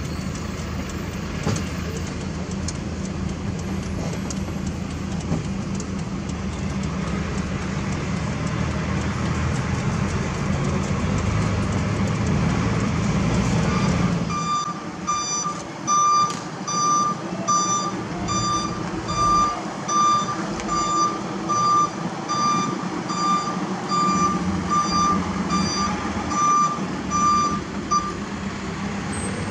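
Heavy truck's diesel engine running steadily under way, heard from inside the cab. About halfway through, a reversing alarm starts: even, high beeps somewhat under two a second, which stop shortly before the end, over an engine running in the background.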